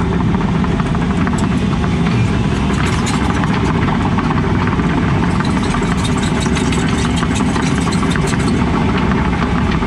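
Excavator diesel engine running steadily, heard from inside the cab while the operator works the joystick controls to grade with the bucket.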